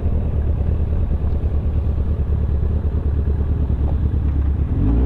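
Kawasaki ZX-10R inline-four sportbike running on the move, its engine sound mixed with an uneven, fluttering wind rumble on the camera microphone.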